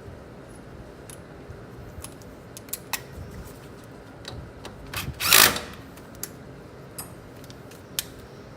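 Small metallic clicks and taps of tools and parts being handled. About five seconds in there is one short, loud burst of a power tool running, as the brake line bolt on the rear brake caliper is driven in.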